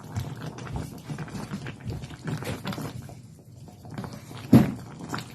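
Light, irregular clicks and knocks of kitchen handling, with one much louder sudden sound about four and a half seconds in.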